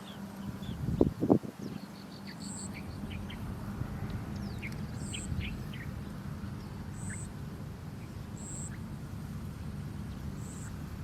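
Sparrow nestlings chirping: short high calls repeating every second or two, with scattered lower chirps in between. Two loud low thumps come a little after a second in.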